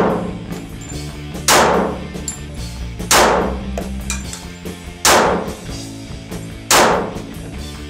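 Glock 36 subcompact .45 ACP pistol fired at a slow, uneven pace: five shots about one and a half to two seconds apart, each sharp crack trailing off in a long echo, over steady background music.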